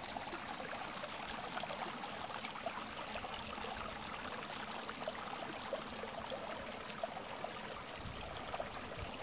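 A small stream running steadily, a continuous rush of water with many small trickling ticks in it.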